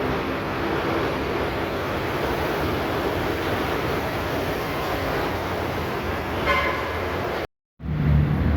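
Steady street traffic noise with a short horn toot about six and a half seconds in. The sound cuts out abruptly near the end and comes back with a louder low rumble.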